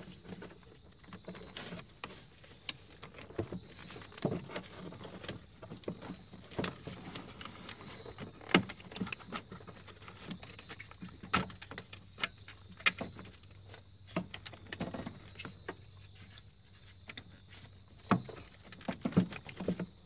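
Irregular clicks, taps and knocks of a hard plastic fuse box housing and its clips being handled and pushed into place in a Toyota Tundra engine bay, with a few louder snaps scattered through.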